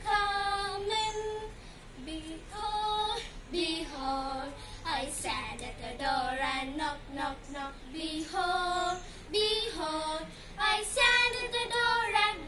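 Two girls singing a children's action song together.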